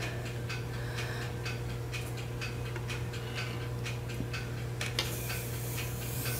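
Rubber-nubbed grooming glove rubbing over a cat's fur: soft, irregular clicks several times a second, and a brushing rustle over the last second and a half, above a steady low hum.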